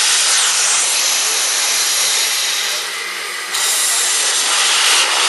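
Steam locomotive letting off steam: a loud, steady hiss that eases briefly about three seconds in.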